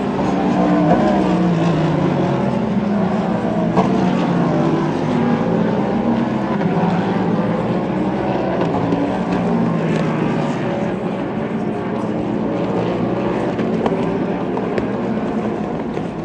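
Sports-car racing engines at full speed as a stream of cars passes one after another, overlapping, each engine note falling in pitch as it goes by.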